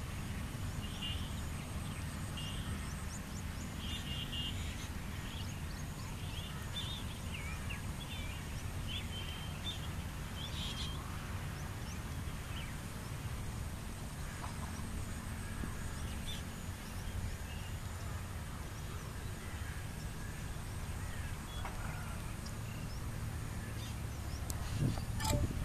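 Small birds chirping over a steady low rumble of background noise, with chirps coming thickly for the first ten seconds or so and only now and then after that. A sharp click and a low thump come near the end.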